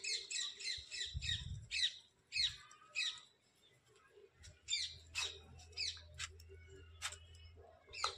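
High-pitched, downward-sweeping chirping calls: a rapid string of chirps in the first second, then single chirps every half second to a second.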